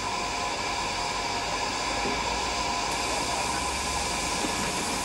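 Steady hiss of steam escaping from a standing metre-gauge steam tank locomotive.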